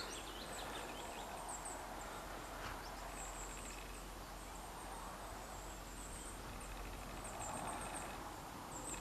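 Faint outdoor background with small birds chirping: short, very high chirps repeating throughout.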